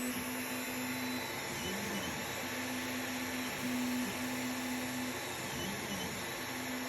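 IDEX-modified Creality Ender 3 3D printer running a print: the stepper motors whine in steady held tones that break off and dip in pitch as the print head changes moves, over the steady hiss of the printer's fans.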